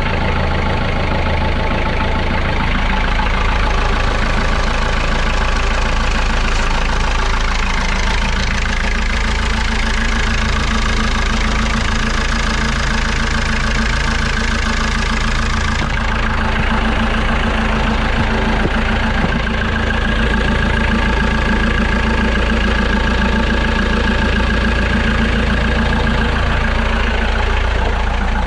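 Small inboard marine diesel engine running steadily at idle after a test start, with the freshly re-bolted starter motor having started it.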